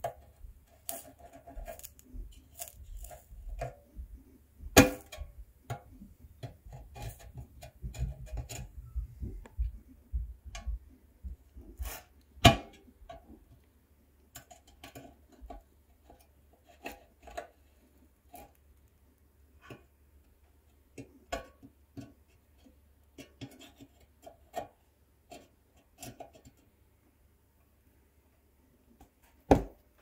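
Small irregular clicks and taps of a metal hand tool against a sheet-metal RC car body while a tiny hinge is held and soldered in place, with a few louder knocks scattered through. A faint low hum runs underneath.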